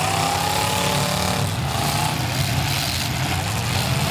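Demolition derby cars' engines running and revving, a steady loud drone, with the pitch rising and dipping in the first second or two as the cars push against each other.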